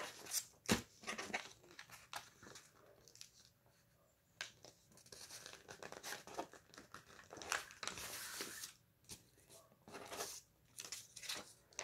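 A sheet of white paper crinkling and rustling as it is folded and creased into the wings of a paper airplane, in irregular bursts with a quieter gap about three to four seconds in.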